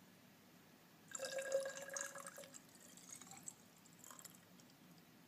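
Alcohol and water being poured together from one container into another: a short, faint pour starting about a second in and lasting about a second and a half, then a few last dribbles and drips.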